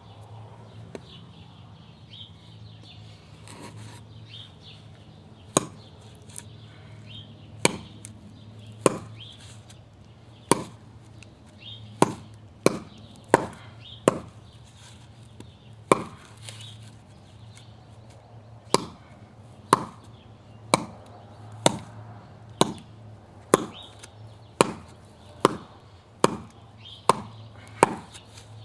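Heavy chopper-style survival knife chopping into a wooden 2x4, a sharp chop roughly once a second, some strokes in quick pairs, starting about five seconds in.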